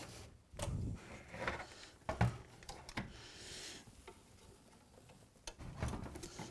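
Light clicks and knocks of metal and plastic parts being handled as a Macintosh Plus's logic board is slid back onto its chassis runners and the case is fitted back on, with one sharper knock a little after two seconds and a brief scraping slide just after three seconds.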